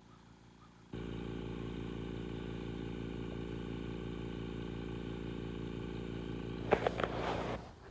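VEVOR pond aerator's 3/4 HP air compressor running with a steady mechanical hum that comes in suddenly about a second in, with a few clattering knocks near the end just before it cuts off.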